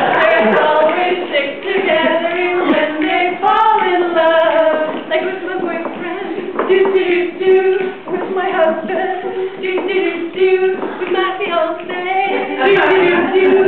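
Female voices singing unaccompanied, in held and gliding sung notes.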